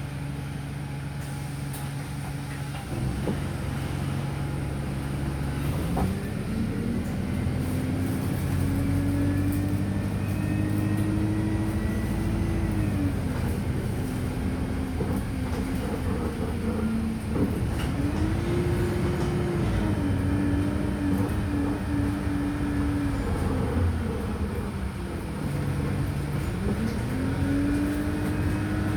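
Wright StreetLite DF single-deck bus heard from inside: its diesel engine idles steadily, then from about six seconds in the bus pulls away. The engine note rises and falls several times as it speeds up, shifts gear and slows, and it is rising again near the end.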